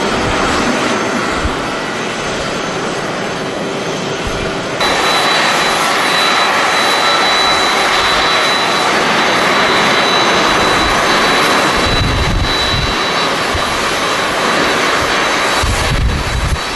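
Jet airliner engines running loud, a steady rush of noise that jumps up abruptly about five seconds in, where a thin high whine joins it. Gusts of wind buffet the microphone with low rumbles about two-thirds of the way in and near the end.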